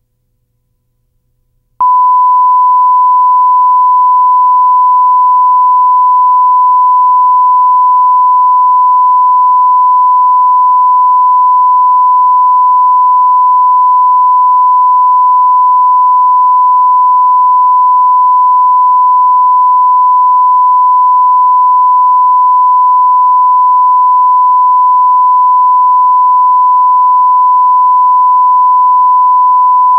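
Steady 1 kHz broadcast reference tone, the line-up signal that goes with television colour bars. It starts abruptly about two seconds in and holds unchanged at a constant pitch.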